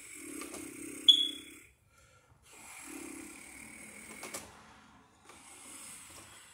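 A man breathing heavily through his nose, three long breaths with short pauses between, while he works. A sharp metallic click rings briefly about a second in, from bare copper wire being twisted against the metal outlet box.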